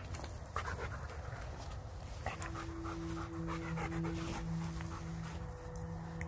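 A dog panting close by, with rustling steps through leaf litter.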